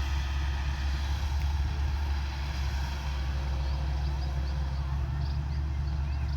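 Combine harvester running steadily under load, a continuous deep engine drone with an even mechanical rush over it.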